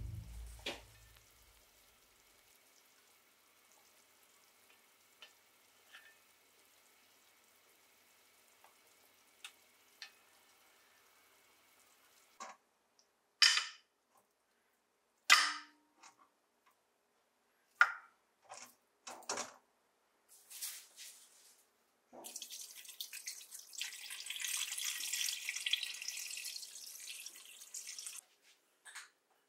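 Several sharp clinks and knocks of tongs against metal pots as meat is moved into a pressure cooker's inner pot. Near the end comes about six seconds of water poured from a kettle into the pot.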